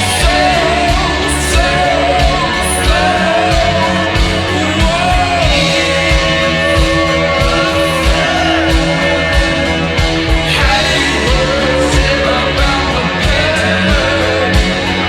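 Slowed-down, reverb-drenched post-punk rock song with a sung female vocal line over guitars, bass and a steady drum beat.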